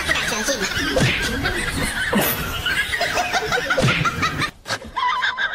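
Human laughter in quick repeated bursts, dropping off briefly about four and a half seconds in, then picking up again.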